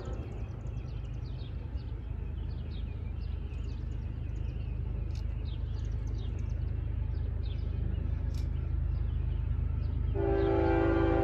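A distant train approaching with a low steady rumble that slowly grows louder, with scattered short high chirps over it. About ten seconds in, the locomotive's air horn starts a long, loud blast.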